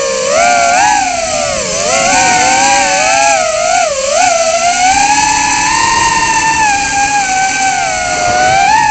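Motors and propellers of a Tinyhawk 2 micro FPV drone whining, heard up close from the drone itself. The pitch swoops up and down with the throttle for the first five seconds, then holds a steadier, higher whine as the drone climbs.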